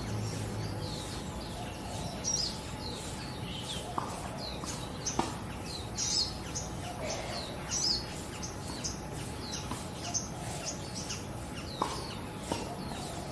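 Small birds chirping repeatedly: short, high, downward-sweeping calls several times a second over a steady background hiss, with a few sharp clicks.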